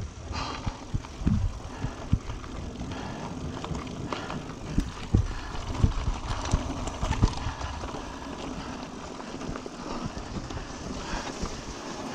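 Mountain bike ridden over a rough dirt and gravel track: a steady rush of tyre and riding noise, with the bike rattling and knocking sharply over bumps, the knocks coming more often in the first half.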